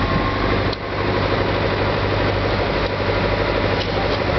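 A passenger boat's engine running steadily, a constant hum with a brief dip about a second in.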